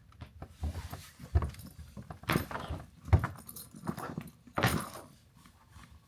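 Handling noises from an unboxing: irregular knocks, clicks and rustles, with two louder swishes about two and a half and five seconds in.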